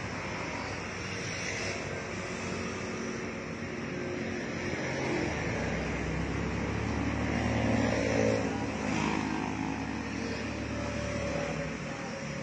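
Road traffic noise, with a steady low mechanical drone from about five seconds in until near the end. The drone is the car's air-suspension compressor running to fill the air tank.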